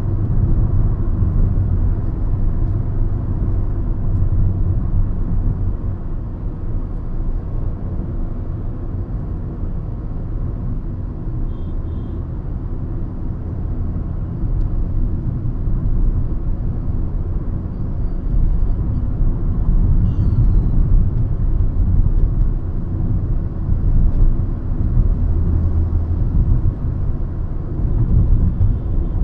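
Hyundai i20 Magna driving, heard from inside the cabin: a steady low rumble of engine and road noise that swells a little a couple of times, with a few faint short high tones.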